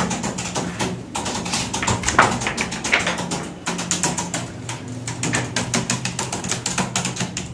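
Fast typing on a laptop keyboard: a dense, uneven run of key clicks.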